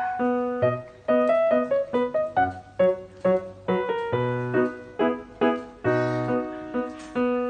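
Background piano music: a melody of single notes, several a second, over lower bass notes.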